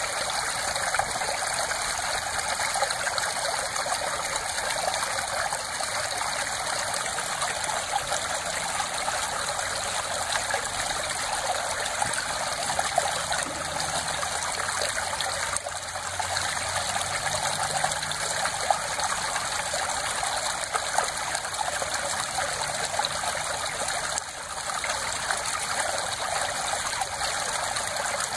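Small shallow stream of water flowing steadily along a narrow dirt channel, splashing over small ripples and stones.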